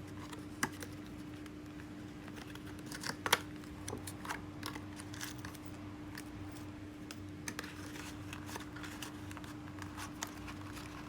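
Irregular light clicks and taps from hands handling a small reel knob and its packaging, the loudest about three seconds in, over a steady low hum.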